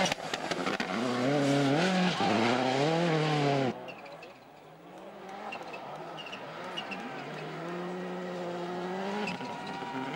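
Rally car engine revving hard in rising steps as it passes, a Peugeot 206 WRC's turbocharged four-cylinder, cut off abruptly a little under four seconds in. Then a Subaru Impreza WRC's turbocharged flat-four is heard approaching, building to a steady high rev as it comes past.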